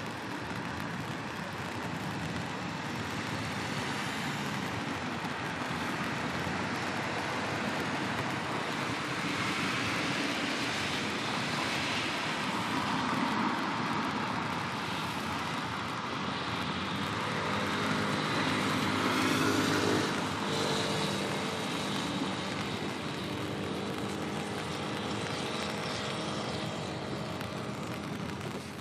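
Steady rushing engine noise of passing motor vehicles. It swells to a peak about twenty seconds in, where a low droning engine tone stands out, then eases off.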